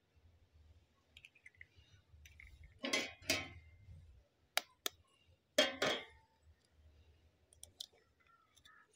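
Eggs being cracked on the rim of a stainless steel bowl: pairs of sharp taps about three and six seconds in, with a few fainter clicks of shell between.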